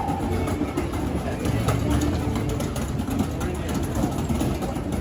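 A steady low engine rumble with people's voices in the background.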